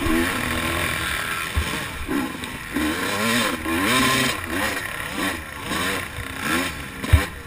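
Motocross bike engine, heard from the rider's helmet, revving up and dropping off again and again as the throttle is worked and gears are shifted around the track. Two sharp thumps break in, the louder one near the end.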